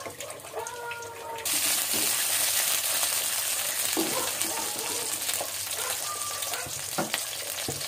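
Garlic frying in hot oil in a pan. A quiet sizzle jumps suddenly to a loud, steady sizzle about a second and a half in, as spring onion pieces go into the oil. A couple of light knocks come near the middle and near the end.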